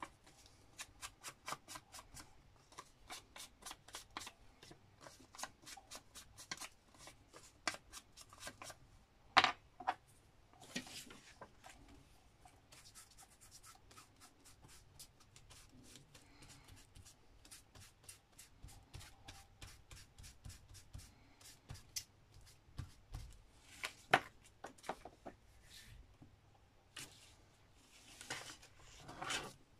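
Hands working paper craft materials: a run of quick, regular clicks, about three or four a second, over the first nine seconds, a louder knock about nine and a half seconds in, and quieter rustling before a few more clicks near the end.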